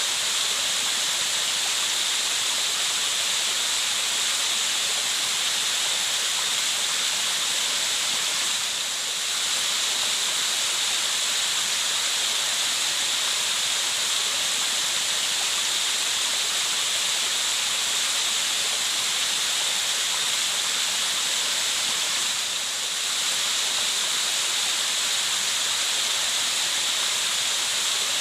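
Steady rushing water, an even hiss weighted toward the high end, dipping slightly twice.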